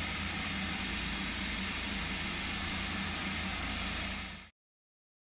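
Cookworks food processor motor running steadily, its blades blending a thick anchovy emulsion. The sound cuts off abruptly about four and a half seconds in.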